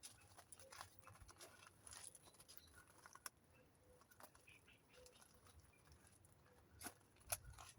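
Near silence, with faint, sharp alarm calls of common blackbirds sounding now and then, two close together near the end.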